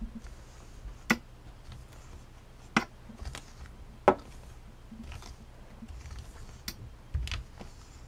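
A wire wig brush working through a doll's synthetic wig hair: quiet scratchy strokes with a handful of sharp clicks spread through, and low handling bumps.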